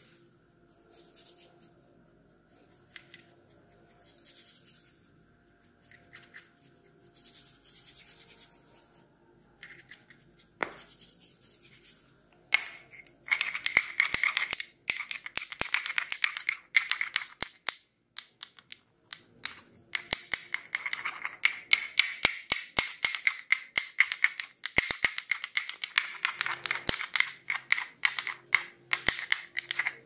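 A wooden massage tool scratched and rubbed close to the microphone over the neck, shoulders and a cotton T-shirt. Slow, separate scratching strokes at first; about halfway through they turn into a dense run of fast, crisp scratches and clicks.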